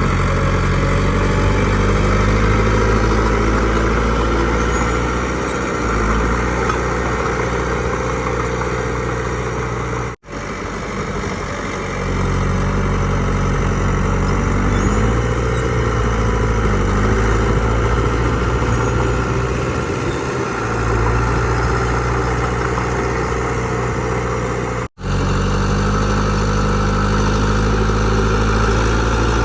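Heavy diesel engine of earthmoving machinery running steadily, its low note shifting a little now and then. The sound cuts out for an instant twice.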